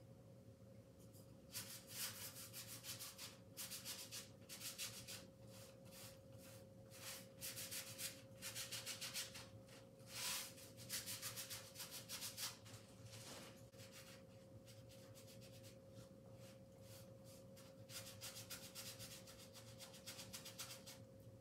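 Paintbrush scraping thick paint across canvas in repeated short, scratchy strokes. A faint steady hum lies under it.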